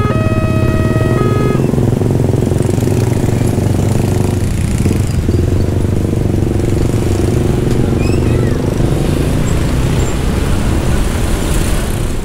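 A diesel inspection train running loud and steady close by. A held chord of tones, likely its horn, stops about a second and a half in.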